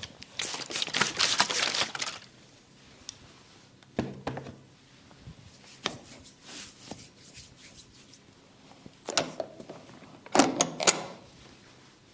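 Massage hands tapping and slapping on bare skin: a fast run of strikes for about a second and a half, scattered single slaps, then two short bursts of strikes near the end.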